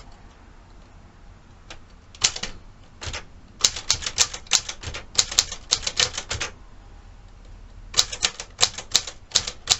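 Smith Corona Galaxie 12 typewriter being typed on, its typebars striking the paper. A few single keystrokes come first, then a quick run of strokes for about three seconds, a pause, and another run near the end.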